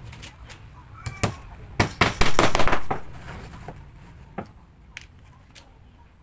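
Sharp knocks of wood on wood and a claw hammer at a wooden workbench as laminated plywood wheel discs are handled: a dense flurry of knocks about two seconds in, then single light taps about half a second apart near the end.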